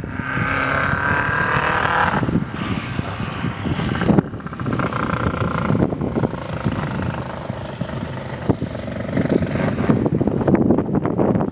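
Volkswagen hatchback rally car driven hard on a dirt stage: its engine revs high, drops back with a sharp crack about four seconds in, picks up again, and turns rougher and more broken near the end as the tyres work the loose dirt.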